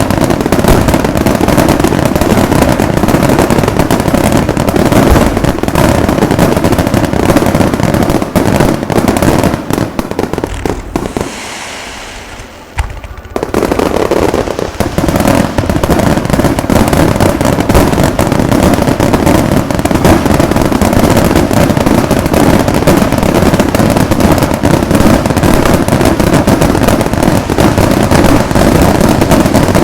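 Fireworks finale: a dense, continuous barrage of aerial shell bursts and crackling bangs. The barrage thins out briefly about a third of the way in, then resumes at full density.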